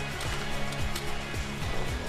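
Music with a steady beat of deep, pitch-dropping electronic kick-drum hits, about two to three a second.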